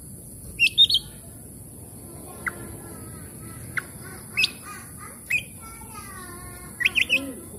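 Oriental magpie-robin (kacer) singing: loud, sharp rising whistled notes, a cluster of three at the start, single notes through the middle and a quick burst near the end, with fainter repeated chattering notes between them.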